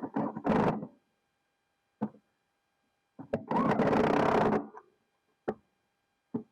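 Impact wrench running in short bursts, with one longer burst of just over a second midway.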